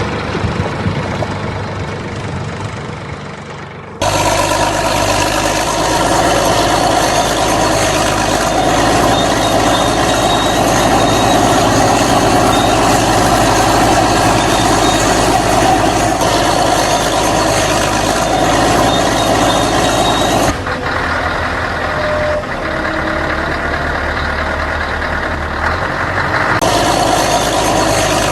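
Steady heavy vehicle engine running, changing abruptly in tone about four seconds in and twice more near the end.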